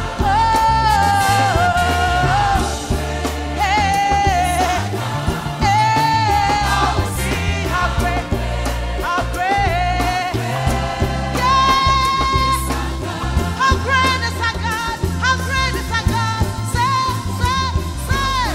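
Live gospel music: a woman sings the lead into a microphone, holding wavering notes, with a backing singer, keyboards and a heavy bass line.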